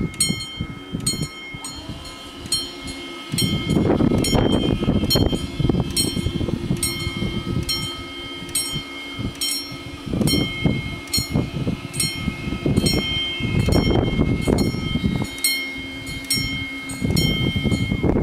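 Italian level-crossing warning bells ringing with rapid, evenly spaced strikes, about two and a half a second, over a steady ringing tone, as the crossing closes for an approaching train. Loud irregular low rumbling comes and goes over it, strongest from about three and a half to seven seconds in and again near the end.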